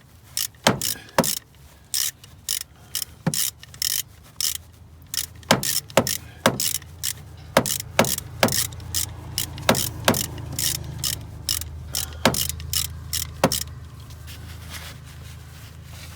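Hand ratchet wrench clicking in uneven strokes, a couple of clicks a second, as fasteners are backed out to remove an old secondary air check valve. The clicking stops about three seconds before the end, leaving a low steady hum.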